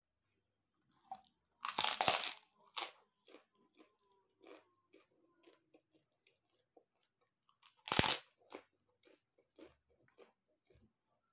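Crispy pork rinds (chicharrón) bitten with a loud crunch about two seconds in and again near eight seconds, each bite followed by softer crunchy chewing.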